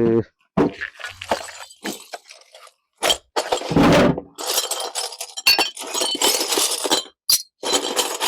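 Foley glass-break effect for a car window shattering: a run of glass crashes and clinking tinkles, the longest and loudest about three to four seconds in, with more short crashes after.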